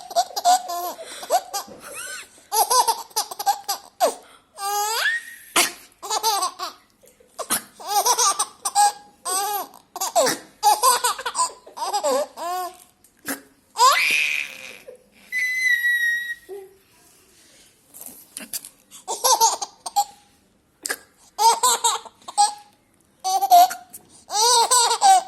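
A baby laughing at sneezing sounds: repeated bursts of giggles and belly laughs, with a short noisy burst about halfway through followed by a high squeal.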